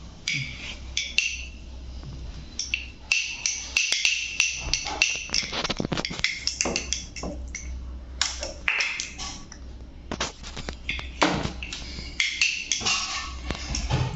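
Toy pellet drum (rattle drum) shaken in bursts, its beads clicking rapidly against the drumheads.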